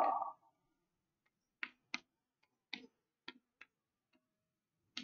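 Chalk tapping on a chalkboard while a word is written: about six short, sharp clicks at uneven intervals.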